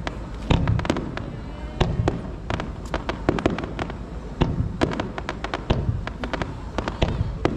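Aerial fireworks going off in a rapid, irregular string of sharp cracks and bangs. Deeper booms come about half a second, two seconds and four and a half seconds in.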